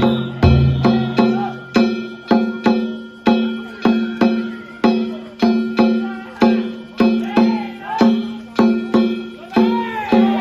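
Danjiri festival percussion (narimono): a metal hand gong struck steadily about twice a second, each stroke ringing on, with deep drum beats in the first couple of seconds. Voices shout near the end.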